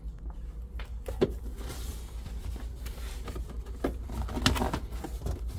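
Loose floor mats and the floor cover in a car trunk being handled and lifted: rustling and a few short knocks, the loudest about a second in and again about four and a half seconds in, over a steady low hum.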